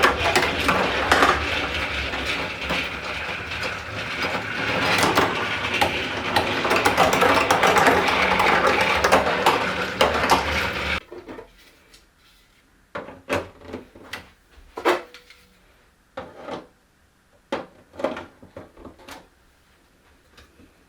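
Marbles clattering down a toy marble run, a dense continuous rattle of many small clicks that stops abruptly about halfway through. After that come scattered single clicks and knocks with quiet gaps between them.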